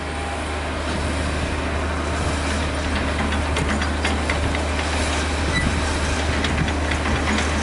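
Bulldozer working: a steady low engine drone with metallic clanking and brief squeaks of its steel tracks, the clanks thickening about two seconds in.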